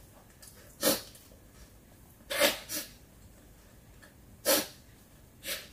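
A woman's short, sharp breaths and sniffles, about five quick bursts a second or so apart, from the burn of very spicy food.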